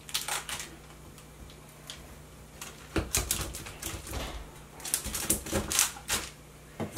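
A cleaver cutting down through a slab of chewy pecan candy, heard as several short clusters of knocks and scrapes against the surface beneath, the busiest a little before the end.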